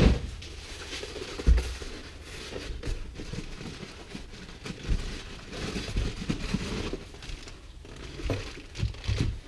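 Packing material and gear being handled: scattered rustling and light knocks, with a dull thump about a second and a half in.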